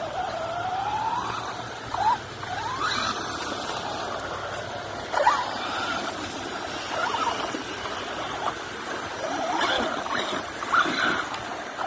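Traxxas Rustler 4x4 VXL radio-controlled truck's brushless electric motor whining, its pitch rising and falling again and again as the throttle is worked. A few short, louder bursts stand out, about two, five and eleven seconds in.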